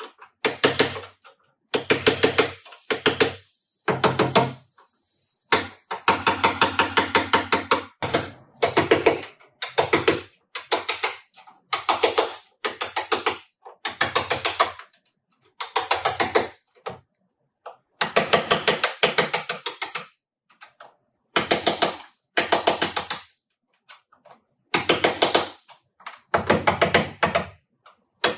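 Ratchet wrench clicking in repeated short bursts of rapid clicks, with brief pauses between bursts.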